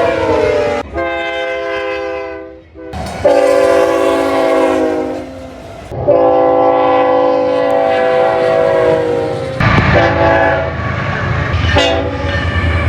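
Locomotive air horn sounding several long, loud chord blasts, one after another, the first one sliding down in pitch as it ends. In the last few seconds a train's low rumble and wheel clatter run under the horn.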